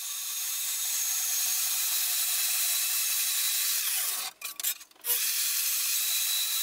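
Milwaukee portable band saw running and cutting through aluminium sheet, a steady sawing sound. The sound breaks off in a few short gaps a little past four seconds in, then resumes.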